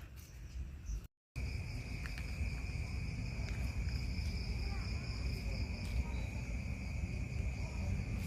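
An insect, cricket-like, calling with a continuous high-pitched trill that starts just after a brief gap of silence about a second in, over a low rumble of wind or handling noise.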